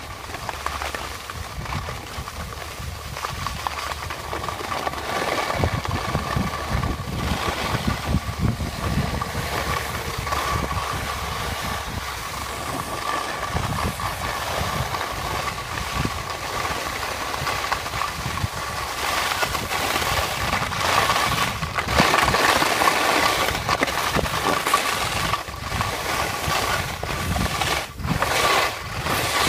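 Skis sliding and scraping over packed snow on a downhill run, with wind buffeting the microphone in an uneven rumble. A thin steady tone runs underneath.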